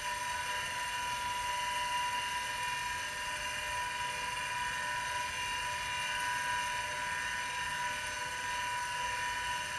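Open-cover 10 MB hard drive from an IBM XT 5160, its spindle motor keeping the platters spinning with a steady whine. The bearings make a rough sound that the owner says does not sound happy.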